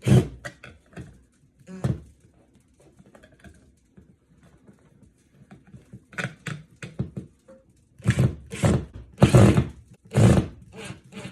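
Irregular knocks, clicks and scrapes of hand work as a smoke detector's plastic mounting plate is screwed to the ceiling with a Phillips screwdriver, with a louder run of scraping strokes near the end.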